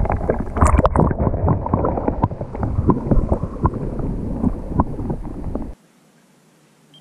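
Wind buffeting the microphone, with a rapid jumble of knocks and clicks from handling, cutting off suddenly about six seconds in.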